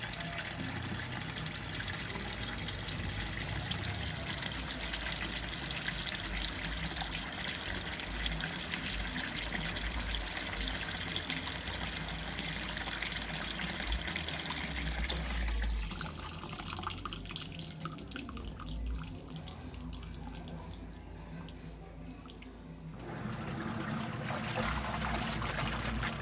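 Water running and splashing inside a Seagull HaiOu washing machine as it washes towels. The water sound eases a little past halfway, then picks up again near the end with a low hum under it.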